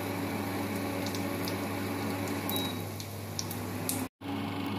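Sausage frying in oil in a wok: a steady sizzle with scattered small pops of spitting oil over a steady low hum. The sound drops out for a moment about four seconds in.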